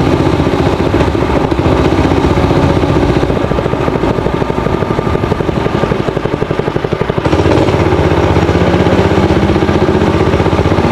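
Honda GX160 single-cylinder four-stroke engine on a minibike running steadily. It eases off for a few seconds in the middle, then picks up again about seven seconds in.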